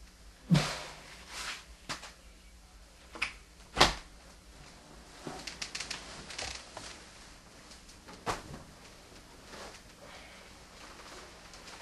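Scattered knocks and thumps, the loudest about half a second in and about four seconds in, with soft clicks and rustles between.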